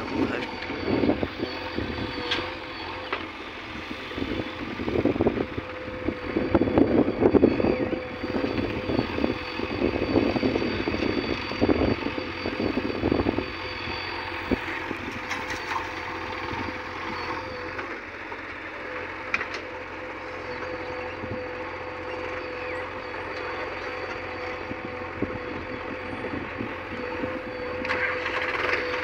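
Heavy diesel engine running steadily, with louder, rougher passages through the first half.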